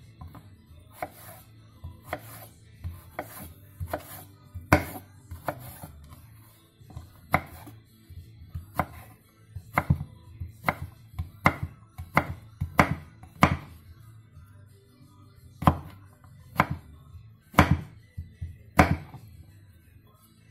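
Chef's knife chopping eggplant on a wooden cutting board: a run of sharp, irregular knocks of the blade striking the board, about one a second, coming faster in the middle.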